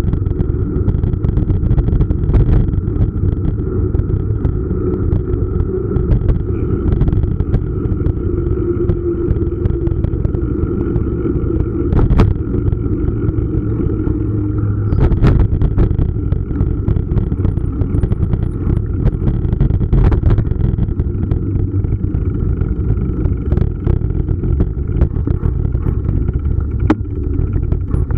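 Wind rushing over the bike-mounted camera's microphone, with tyre and road rumble from a mountain bike riding along a city street. A few sharp knocks and rattles come from bumps, the loudest about fifteen seconds in.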